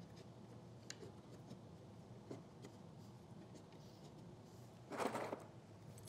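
Faint handling sounds of small connectors being fitted into slots in wooden slats: a few light clicks, then a short rustle about five seconds in as a hand reaches into a cardboard box of Tenso connectors.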